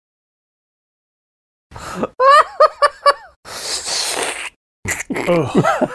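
Almost two seconds of dead silence, then a person laughing hard in short rising and falling bursts, a long breathy wheeze, and more laughing near the end.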